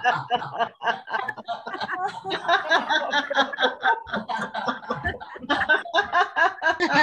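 Several people laughing at once over a video call, a continuous jumble of chuckles and laughs: the group's deliberate laughter-yoga laugh.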